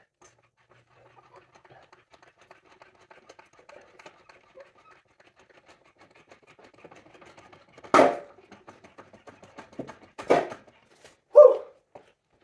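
Trolley jack being worked by its long handle: faint clicking and creaking, then two sharp knocks about eight and ten seconds in and one shorter sound just after.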